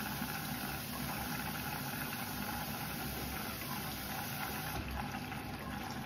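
Bosch front-loading washing machine running a rinse cycle: a steady hum from the machine with water sloshing around the laundry in the turning drum.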